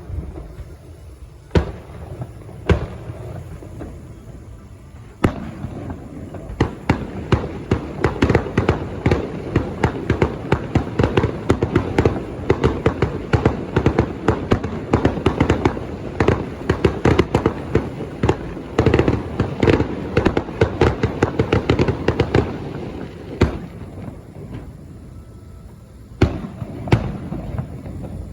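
Fireworks going off. A few separate bangs give way to a long, dense barrage of rapid pops and crackles lasting about fifteen seconds, and then it thins out to a few scattered bangs near the end.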